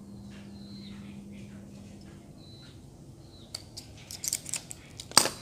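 Light clicks and knocks of hands working a bamboo kite frame and its tying string. They cluster in the second half, ending in one sharp, loud click just before the end.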